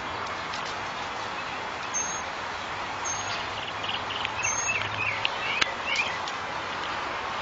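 Steady outdoor background noise with short, wavering high bird chirps and squeaks about four to six seconds in, and a few sharp clicks.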